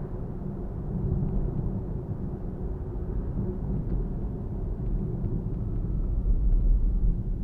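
Nissan Fuga 370GT Type S on the move, its VQ37VHR V6 and tyres making a steady low rumble of road and engine noise that swells a little near the end.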